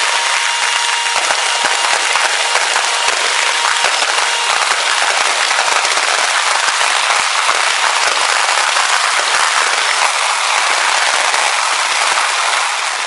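Fireworks exploding in a dense, continuous crackle of overlapping bangs and pops, loud and steady, then fading out at the very end.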